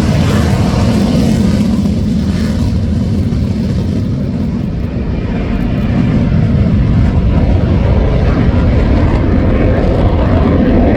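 F-15SG fighter jets' twin F110 turbofan engines on a scramble take-off, a heavy, steady low rumble. The higher hiss fades over the first few seconds, and the sound eases slightly around the middle, then grows louder again toward the end.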